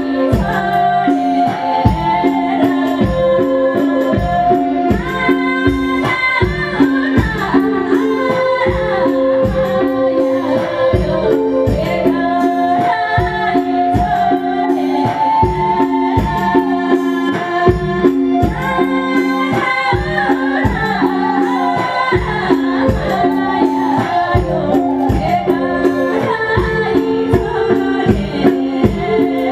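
A woman sings a Nepali folk tune over an amplified live band, with a steady, rhythmic drum beat under the melody.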